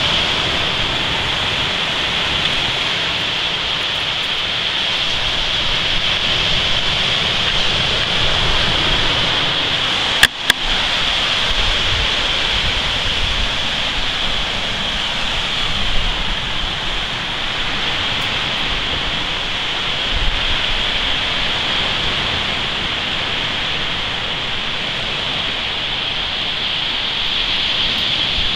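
Steady rushing noise of surf on a beach, with a continuous high hiss over it. Two sharp clicks about ten seconds in.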